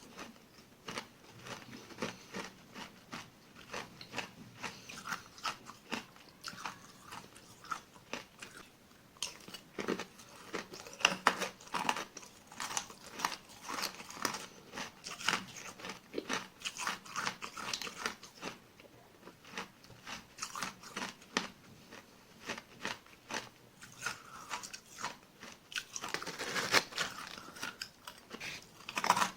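A mouth biting and chewing small granular ice pieces close to the microphone: a steady run of crisp crunches and cracks, several a second, fairly soft overall.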